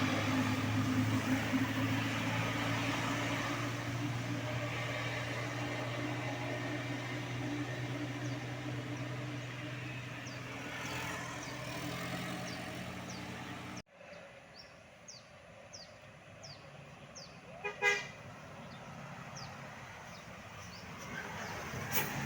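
A large vehicle's engine runs steadily with a low drone. It cuts off suddenly about two-thirds of the way in, leaving a quieter background with faint high chirping, and a short horn toot sounds near the end.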